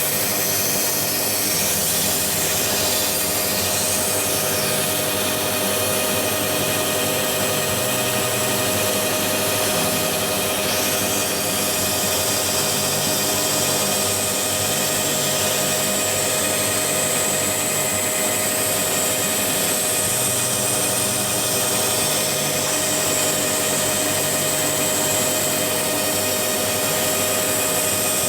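Metal lathe turning down a drive shaft, running steadily with a constant tone under a high hiss from the cut.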